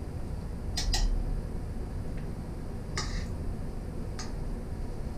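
Metal kitchen tongs clicking against a metal stockpot while bones are fished out of the stock: a close pair of clicks about a second in, then single clicks at about three and four seconds.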